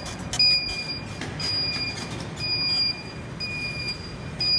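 Electric shopping scooter's warning beeper sounding a steady high beep about once a second, each beep lasting most of a second.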